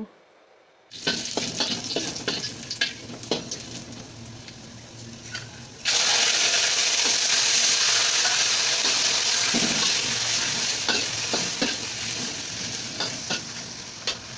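Squid stir-frying in a hot wok: a steady sizzle with the clicks and scrapes of a metal spatula against the pan. The sizzle jumps sharply louder about six seconds in, then slowly dies down.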